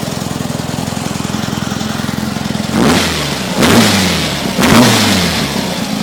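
VW Beetle's 2387cc air-cooled flat-four engine idling, then revved in three quick blips about three seconds in, each rising in pitch and dropping back to idle.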